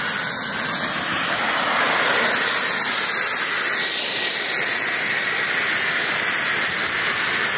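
Small jet engine of about 50 pounds of thrust running at high power while it drives a wooden dolly. It makes a steady, loud rushing noise with a thin high whine that climbs slightly about two seconds in.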